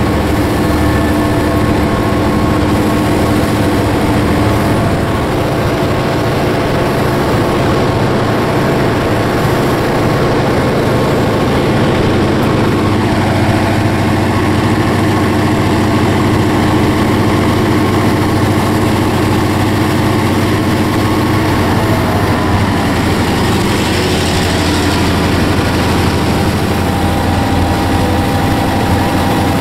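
EMD diesel-electric locomotive, built as a GP35, running at full throttle with a loud, steady engine drone. It is working under very heavy load, about 900 amps on the traction motors, while the train crawls along below 20 km/h.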